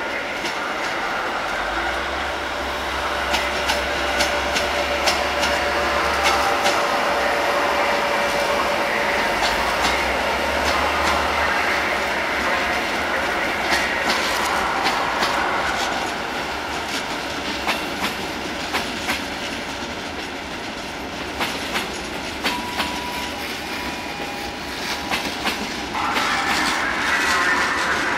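Passenger trains hauled by electric locomotives rolling through station trackwork, their wheels clicking over rail joints and points in an irregular run of clatter over a steady rumble. The sound jumps louder about two seconds before the end.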